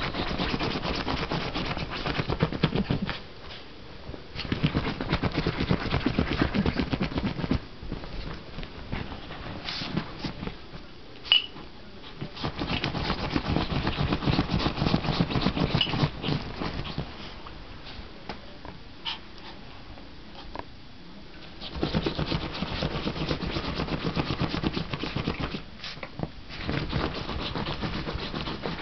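A puppy digging and rooting into soft bedding, making scratchy fabric rustling in bursts of a few seconds with short pauses between. A single sharp click about a third of the way through.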